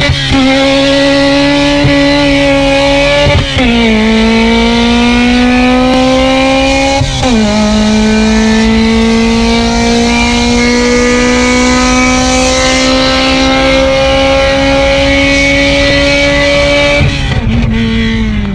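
K-swapped Honda Civic's K-series four-cylinder engine pulling hard through the gears: the pitch climbs, drops at upshifts about 3.5 and 7 seconds in, then rises slowly through a long pull before easing off near the end.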